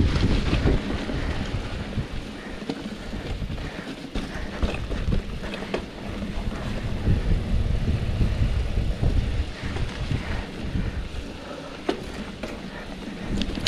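Wind buffeting the microphone of a camera riding along on a mountain bike, with scattered clicks and rattles from the bike over a rough trail.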